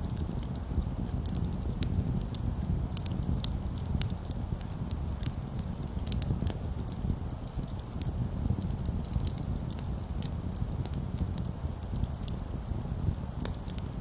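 Small wood campfire crackling, with frequent irregular sharp pops and snaps over a steady low rumble.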